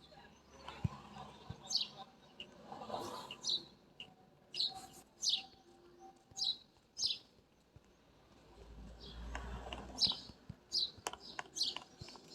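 A small bird chirping repeatedly: short, high, falling chirps in loose runs, with a low rumble partway through.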